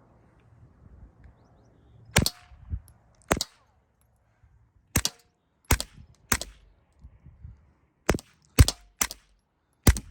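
Glock G44 .22 LR pistol firing subsonic 40-grain rounds through a Little Spoon suppressor: about nine sharp, suppressed shots at an uneven pace, starting about two seconds in. The pistol runs without a stoppage through the string.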